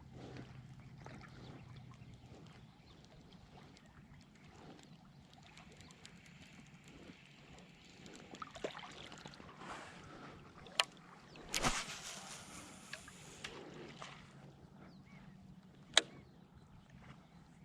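Quiet water sloshing and lapping around a float tube as it moves on the lake, with two sharp clicks and a short louder rush of noise about twelve seconds in.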